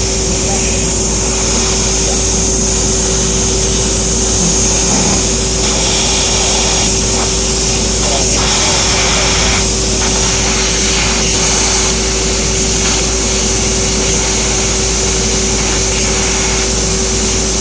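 EKS Laser ESF-3015GT 1 kW CNC fiber laser cutter running while cutting thin stainless sheet: a steady machine hum with a constant tone and a high hiss, and a brighter hiss that cuts in and out every few seconds.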